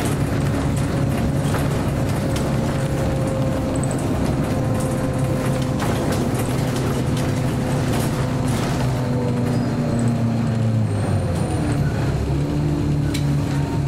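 Scania L94UB city bus heard from inside the cabin while under way: the engine and driveline run steadily with rattles and clicks, and the engine's pitch drops and then climbs again near the end.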